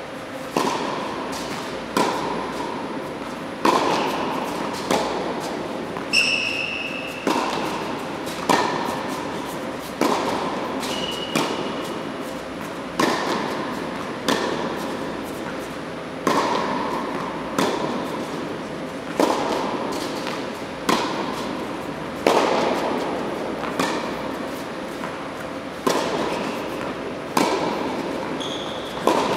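Tennis ball being hit by a racket and bouncing on an indoor hard court in a steady rally, about one sharp impact every second and a half, each echoing in the large hall. A few short squeaks of shoes on the court.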